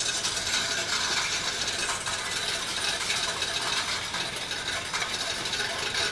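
Coin-counting machine counting a batch of deposited coins: a steady, dense clatter of coins rattling and clinking through its sorting mechanism.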